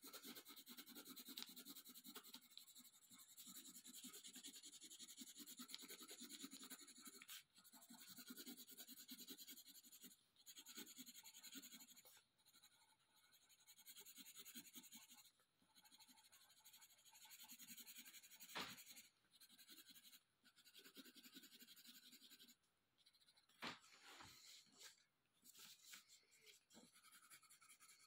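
Colored pencil scratching on paper as a picture is colored in, faint, in stretches of a second or two broken by short pauses. A couple of light clicks come in the second half.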